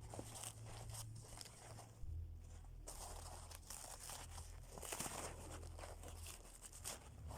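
Faint rustling and crinkling with scattered small clicks and knocks, over a low steady hum.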